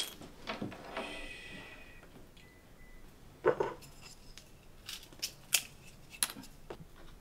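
Thin split-bamboo uchiwa fan ribs clicking and clattering against each other and the bench as they are handled by hand: a handful of sharp separate clicks, with a brief high ringing about a second in.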